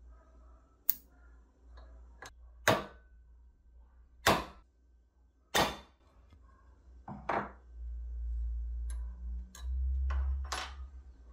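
A series of sharp knocks and clicks at uneven spacing, about nine in all; the three loudest come roughly a second and a half apart. Under them runs a low hum that grows louder in the second half.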